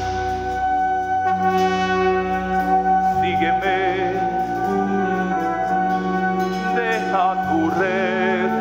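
Instrumental music from a stage-play soundtrack: long held chords, with a wavering wind-like melody line entering about three seconds in and again near the end.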